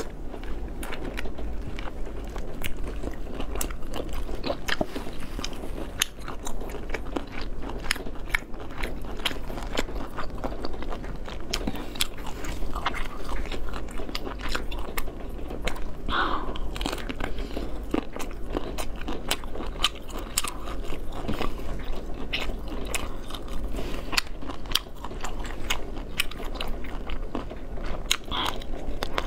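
Eating steamed lobster: biting and chewing the meat, with many sharp crunches and clicks throughout.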